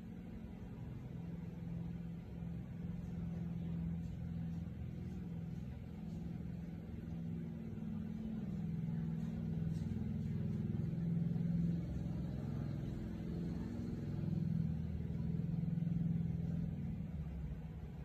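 A low engine rumble with a wavering hum, slowly swelling and fading in loudness.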